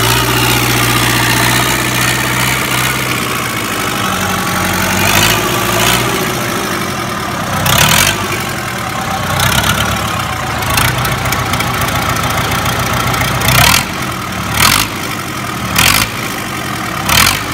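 Perkins LF diesel engine running unloaded, its speed shifting in the first few seconds and then settling into a steady run. Several loud, sharp knocks cut through it over the second half.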